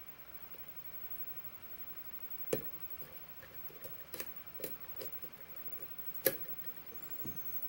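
Pick and tension wrench working the pins of a pin tumbler challenge lock during single-pin picking: a scattered series of small, sharp metallic clicks and ticks, starting about two and a half seconds in, the loudest a little after six seconds.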